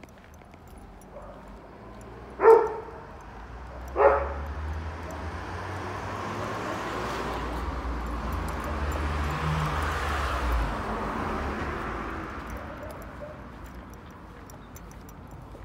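Two short, loud animal calls about a second and a half apart, followed by a vehicle passing along the street, its noise swelling to a peak and fading away.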